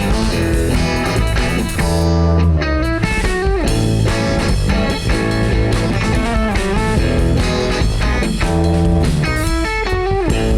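A band playing a funky song: an electric guitar melody over bass and drums.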